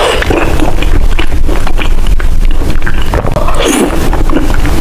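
Close-miked chewing of oden, a dense run of small mouth clicks, with louder wet mouth sounds near the start and again about three and a half seconds in.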